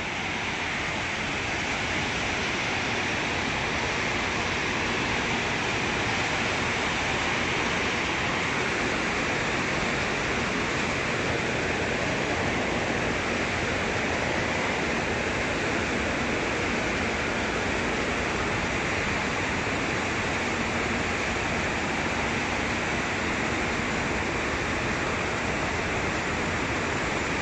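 Steady, even din of a graphite processing plant's machinery running, with a faint low hum coming and going.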